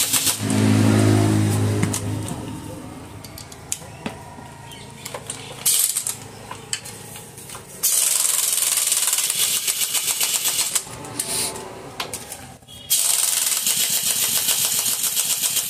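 Cordless impact wrench hammering bolts tight as the rebuilt engine is bolted into the motorcycle frame. It runs in bursts of rapid rattling: a short run with a steady low hum in the first two seconds, brief blips about six seconds in, then two long bursts starting about eight and thirteen seconds in.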